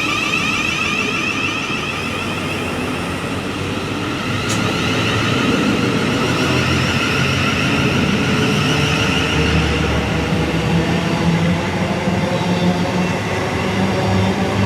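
Electric passenger train passing through the station, its traction motors whining in several steady tones that drift slowly in pitch over a wheel and track rumble that grows from about four seconds in.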